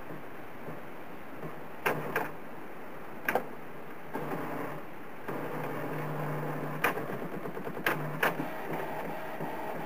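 Canon inkjet printer's CD printing tray being drawn into the machine: a few sharp mechanical clacks, then a feed motor running with a steady hum from about four seconds in, with more clacks near the end as the tray goes inside.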